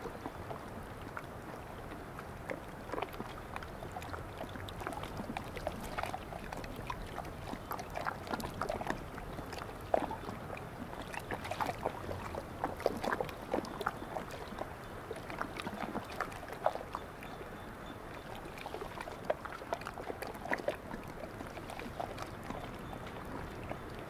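Small sea waves lapping at the shore: a soft steady wash with many little splashes, busiest in the middle.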